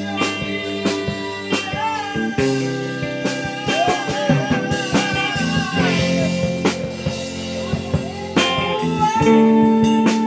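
Blues-rock music with electric guitar bending notes, bass and drums, and a voice possibly singing along.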